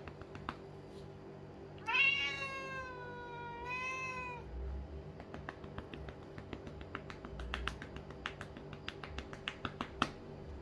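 Lynx point Siamese cat giving one loud, drawn-out meow about two seconds in, with a wavering pitch, asking to be patted again. Around it, a hand pats the cat's rump in quick light taps, several a second, with one sharper pat near the end.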